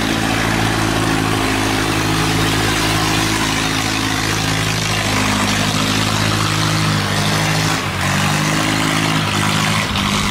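Long-tail boat engine running hard at high throttle, driving a loaded wooden boat up through a sluice gate against a strong current. Its pitch shifts a little midway and dips briefly near the end, over the hiss of rushing, churning water.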